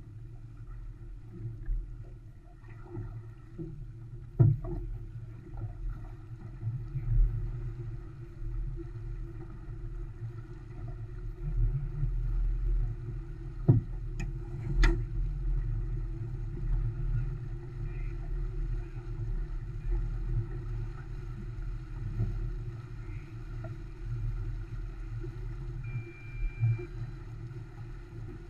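Steady low rush of wind and water as an Olson 25 sailboat sails through chop, with a few sharp knocks, the loudest about halfway through, and a short faint beep near the end.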